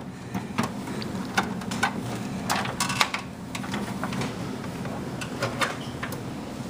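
Scattered light clicks, taps and scrapes of a motherboard and its cables being handled and fitted into a desktop PC case, a few louder knocks around three seconds in, over a steady low hum.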